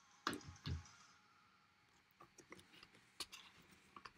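Handling noise: two dull thumps a little under half a second apart near the start, then scattered light clicks and rustles.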